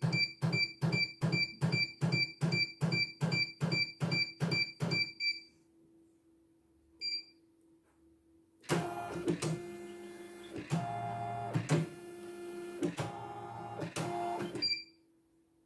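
Computerised embroidery machine: a rapid run of beeps, each with a low knock, about three a second, stopping after about five seconds. After a single short beep, the embroidery unit's motors drive the hoop across the bed with a buzzing, whining mechanical noise for about six seconds, followed by another short beep.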